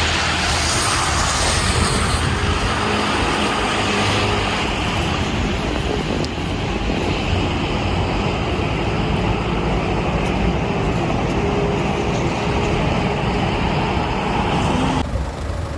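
City street traffic: a steady wash of passing vehicles and road noise, which drops suddenly to a quieter level near the end.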